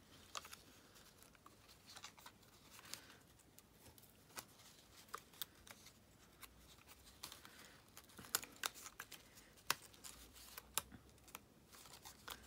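Faint paper crackling and small ticks as a delicate die-cut paper flower shape is gently eased out of its sheet by hand. The ticks come more often in the second half.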